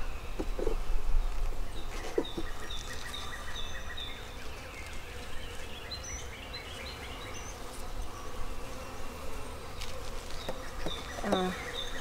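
Honeybees buzzing over an open hive, a dense steady hum, the bees becoming agitated. A couple of light knocks in the first two seconds as the frame and hive tool are worked.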